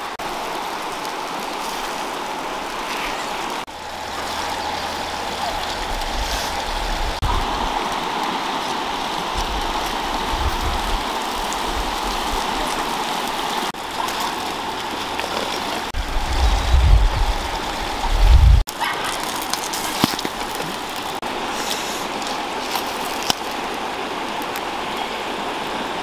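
Steady rushing outdoor noise, with a few low bursts of wind buffeting the microphone, strongest about two-thirds of the way through.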